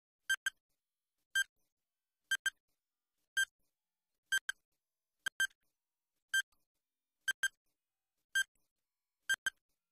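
Quiz countdown timer sound effect: short electronic tick-beeps about once a second, some single and some doubled, counting down a ten-second answer time.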